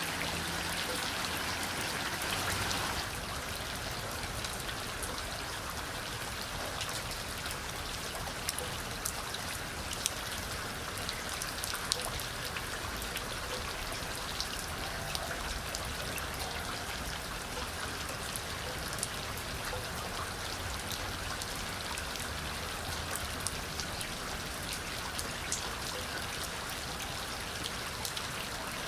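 Steady rain falling, with individual drops striking as sharp clicks over an even hiss. The sound changes and drops slightly in level about three seconds in.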